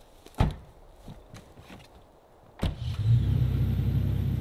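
A pickup truck door slams shut, followed by a few faint knocks. About two and a half seconds in, the Toyota Tacoma's engine starts and runs at a steady idle.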